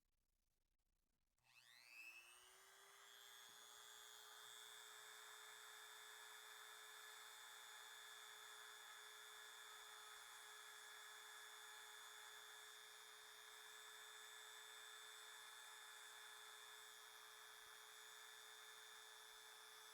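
Dremel rotary tool switched on about a second and a half in, its faint whine rising as the motor spins up, then running at a steady high pitch.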